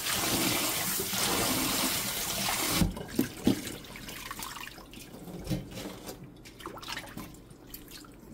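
Kitchen tap running into a stainless steel bowl while hands swish blanched sweet potato stems in the cold rinse water. About three seconds in the running water stops, leaving sloshing, dripping and a few light knocks as the wet stems are lifted out.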